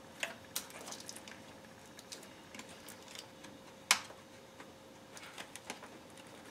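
Scattered small plastic clicks and rattles of a hose quick-connect fitting being pried and worked loose with a screwdriver, with one sharper click about four seconds in, over a faint steady hum.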